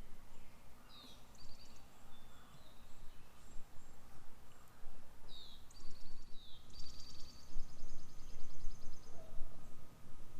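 A songbird singing two phrases, each a quick downward slur followed by a rapid high trill; the second trill is longer, lasting a couple of seconds. A low outdoor rumble runs underneath and is louder in the second half.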